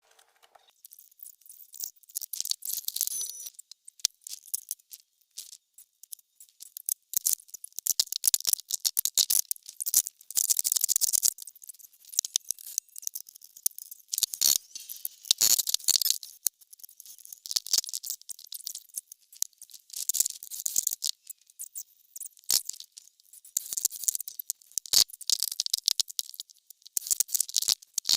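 Irregular rattling and clicking in quick runs, with brief gaps between them.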